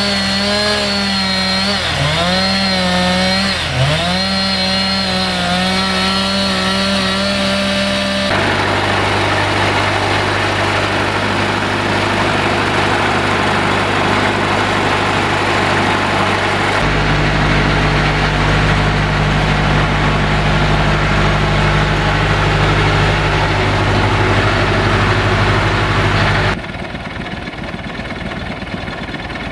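UTB U651M tractor's four-cylinder diesel engine running fast while driving a log splitter, its pitch sagging briefly and recovering about three times as the splitter loads it. It then runs steadily, with its note changing abruptly a few times, and is quieter near the end.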